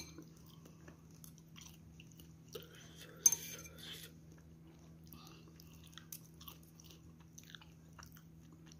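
Faint chewing and eating sounds of a person eating noodle soup with a metal spoon and chopsticks, with a few light clicks and one louder, short noisy sound about three seconds in, over a faint steady hum.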